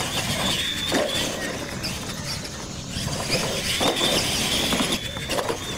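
Radio-controlled monster trucks racing over dirt: a high motor-and-gear whine that rises and falls, with several sharp knocks and clatters as the trucks bounce over the track.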